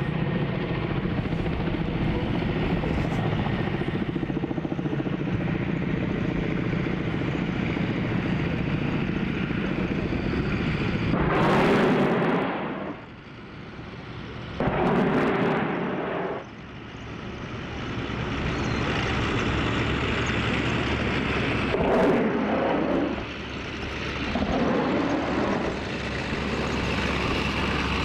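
Ka-52 attack helicopter's coaxial rotors and twin turboshaft engines running in a steady drone overhead. About midway and again later come three loud bursts of noise, each about a second long, as unguided rockets are fired in salvos.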